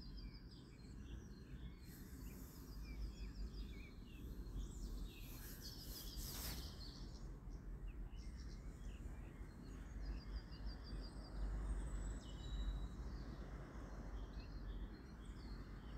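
Faint birdsong: short chirps and repeated high trills from birds, coming and going, over a steady low background rumble.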